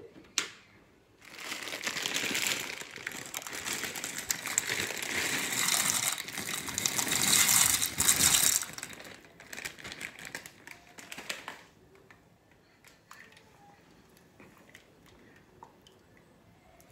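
Crinkling of a plastic bag of dry bow-tie pasta as it is handled and the pasta is poured into a pot of boiling water. It lasts about ten seconds and is loudest near its end, then gives way to a few faint ticks.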